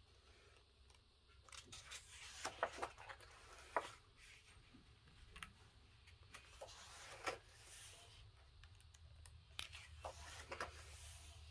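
Coloring book pages being turned: faint paper swishes and rustles in a few groups, with a couple of sharper taps in the first few seconds.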